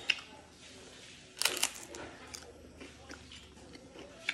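Crisp crunching and chewing of a kiping rice wafer glazed with latik coconut syrup, close to the microphone. The loudest crunch comes about a second and a half in, followed by a few smaller crackles.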